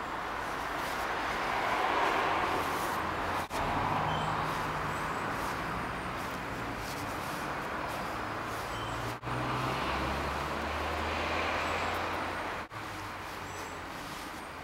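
Road traffic passing: a steady rush of tyre and engine noise with a low hum, swelling twice and easing off again. The sound drops out for an instant three times.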